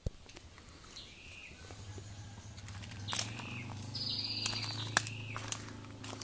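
Birds calling outdoors, a series of short arched chirps, one buzzy note about four seconds in. A low steady hum comes in from about two seconds in, with scattered light clicks.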